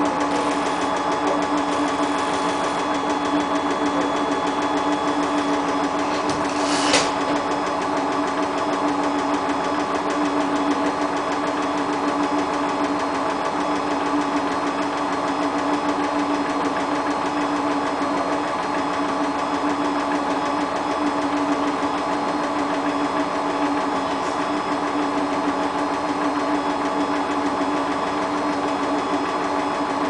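Hotpoint WT960 front-loading washing machine running mid-cycle: a steady mechanical hum with a constant pitch, with one sharp knock about seven seconds in.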